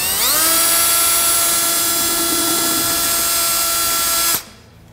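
Cordless drill spinning up with a quick rising whine and running steadily as it drills a roughly 6 mm hole in a UTV frame out to 8 mm, then stopping suddenly near the end.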